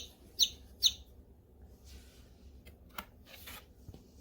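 A baby chick's peeps played from a children's sound book: three short high cheeps about half a second apart in the first second, then quiet apart from a sharp click about three seconds in.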